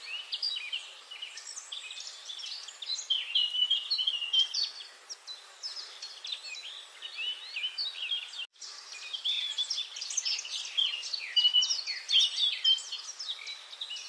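A dense chorus of many small birds chirping and twittering over one another in short, quick high-pitched calls. The sound cuts out completely for an instant a little past halfway.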